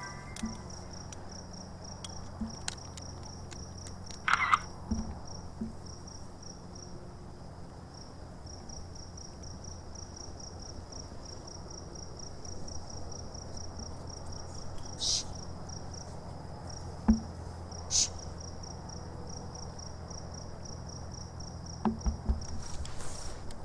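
Night insects chirping in a steady, rapidly pulsing high trill, with a few short louder sounds breaking in, the loudest about four seconds in.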